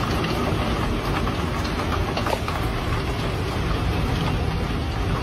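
Heavy rainstorm: a steady, even rushing noise of rain falling.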